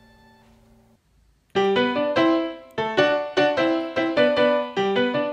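Background music: a held chord fades out, a brief gap of silence, then a bouncy keyboard tune of quick, struck notes starts about one and a half seconds in.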